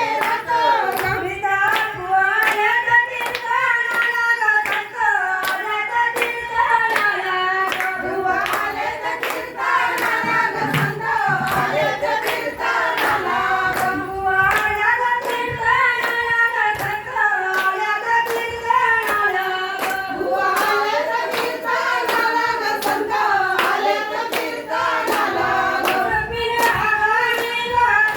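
A woman singing a traditional Marathi Ganpati devotional song, with steady hand claps keeping the beat.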